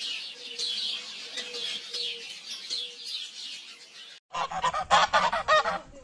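Small birds chirping in a steady repeated pattern, then after a sudden cut about four seconds in, domestic geese honking loudly in a rapid run of calls for about a second and a half.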